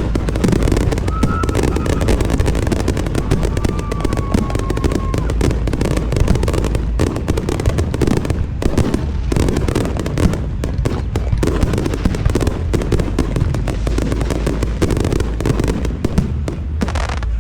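Fireworks display in a dense, non-stop barrage: rapid overlapping bangs and crackles over a deep rumble. The bursts thin out slightly near the end.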